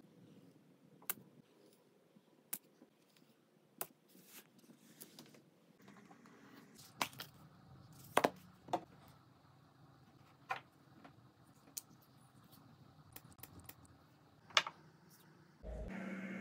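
Quiet handling sounds of small objects: scattered sharp clicks and taps, with the loudest a few near the middle. Near the end a steady whirring noise starts suddenly.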